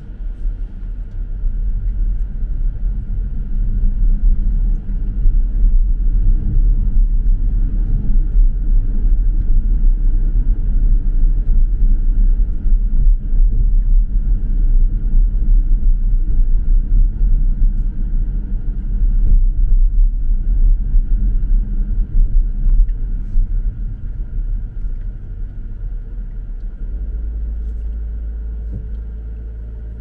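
Car driving, with a loud low road and engine rumble. It builds over the first few seconds, holds steady, then eases off near the end, leaving a steadier low hum.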